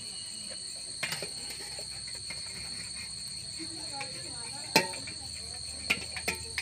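Crickets trilling steadily, with a metal skimmer ladle knocking against a metal cooking pot several times as boiled maize cobs are lifted out. One knock comes about a second in, the loudest just before the five-second mark, and two or three quicker ones near the end.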